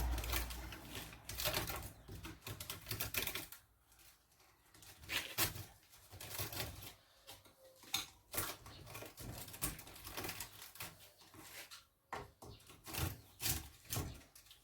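Irregular clicks, snaps and scrapes of copper winding wire being pulled out of a washing machine motor's stator.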